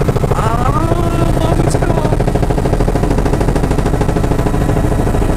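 Helicopter engine and rotor running steadily in flight, heard from inside the cabin as a loud, even, rapid chop.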